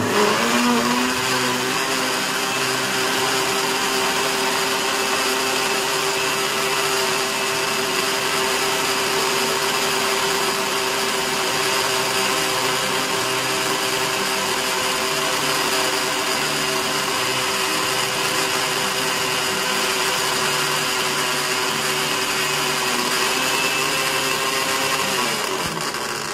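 Countertop electric blender running on a load of leaves and water, pulping them into green juice. It switches on suddenly with a brief rise in pitch as it spins up, runs steadily, and is switched off at the very end.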